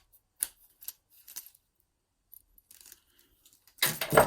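Old metal padlocks being handled: a few sharp metallic clicks in the first second and a half, then a louder clatter of metal near the end.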